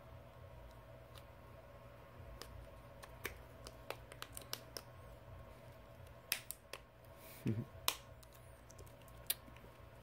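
Small black plastic back-frame pieces of a Samsung Galaxy S7 Edge being pressed and snapped into place by hand: scattered small sharp clicks, several in quick succession, with one duller thump partway through.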